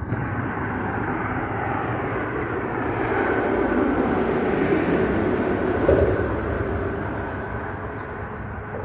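Traffic noise from a vehicle driving across the highway bridge overhead, building to its loudest midway and then fading away. A small bird chirps repeatedly.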